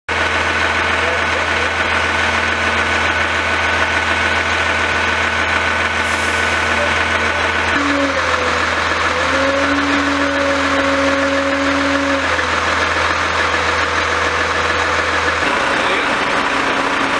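Fire engines' diesel engines idling steadily: a loud, even running noise with a constant low hum, which drops out about fifteen seconds in.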